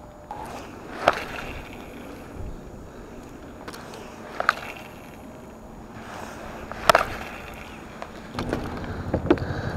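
Sharp clicks and knocks of fishing rods, reel and tackle being handled against a plastic kayak, the loudest about a second in, midway and about seven seconds in. Near the end a low rushing of water against the hull sets in, with more knocks.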